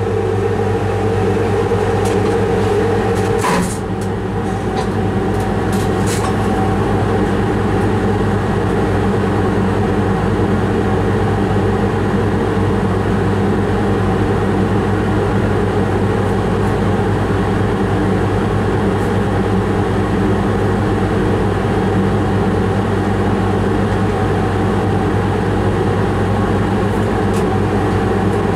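Steady hum inside an electric locomotive's cab, with several steady tones from its running equipment. There is a click about three and a half seconds in, and the level dips briefly after it.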